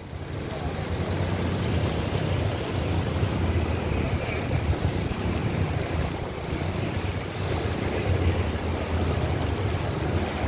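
Fast-flowing floodwater rushing across a road, a steady churning wash, with wind rumbling on the microphone.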